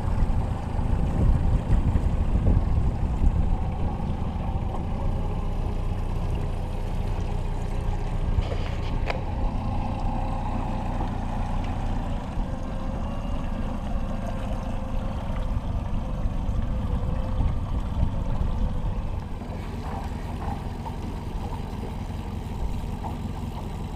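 Boat outboard motor running steadily while trolling, a continuous low rumble with the hull moving through the water.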